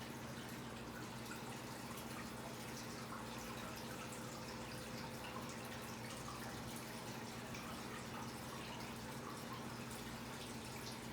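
A steady low hum with an even hiss, faint scattered ticks and a faint thin tone in the middle.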